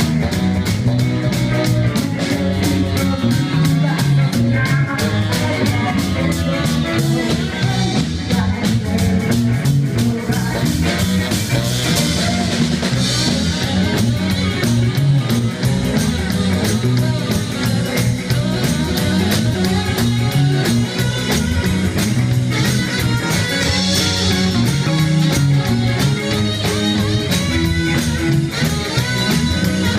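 Rock band playing a song: electric guitar, bass and drum kit with a steady beat, and some singing.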